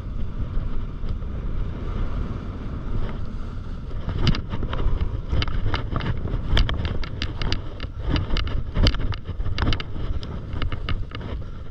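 Wind rushing over the camera microphone during a fast descent on snow, with a steady hiss of sliding. From about four seconds in comes a quick run of sharp scrapes and chatter as the edges cross wind-crusted, uneven snow.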